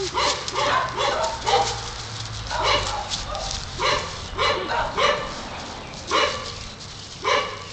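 A dog barking repeatedly in short barks, about one or two a second with brief pauses: excited play barking at a person.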